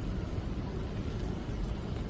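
Steady rain falling, an even hiss with a low rumble underneath.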